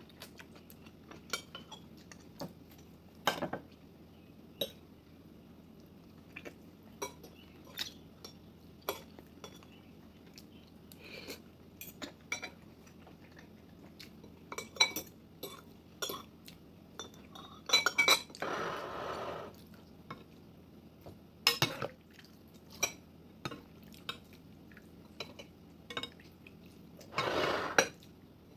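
Eating utensils clinking and scraping against a dish, in many short, irregular taps. Two longer, louder sounds of about a second each come in, a little past the middle and near the end.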